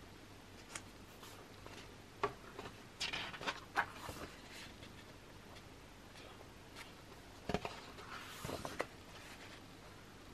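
Pages of a thick photobook being turned and handled: short paper rustles and soft taps, in a cluster about two to four seconds in and another around seven to nine seconds.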